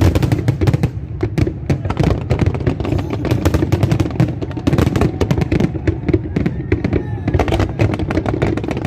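Fireworks display going off: a dense, continuous barrage of bangs and crackles, many per second, over a low rumble.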